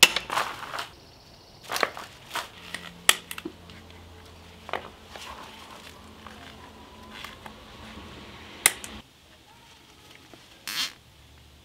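Artificial greenery garlands rustling as they are handled and dropped onto a rug. Short sharp snips and clicks come from scissors cutting the plastic tags off them.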